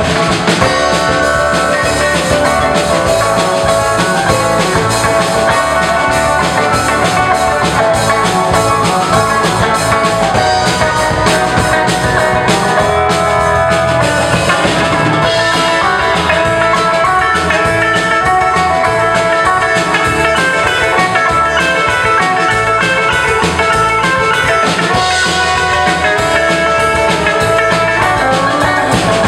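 Live rock band playing an instrumental passage on drum kit, electric guitar, bass and keyboard.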